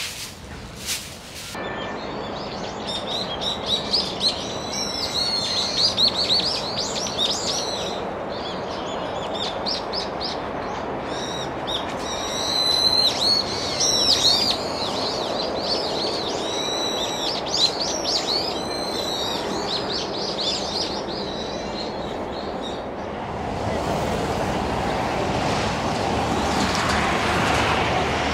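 A chorus of small birds calling: many short, sweeping high chirps, tumbling over one another, over a steady hum of distant traffic. About three-quarters of the way through the chirping stops and the rushing traffic noise swells.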